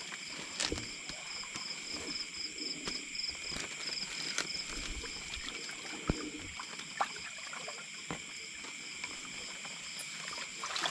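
Steady high-pitched night insect chorus with several overlapping trills, one of them pulsing rapidly, over scattered clicks and small splashes of water.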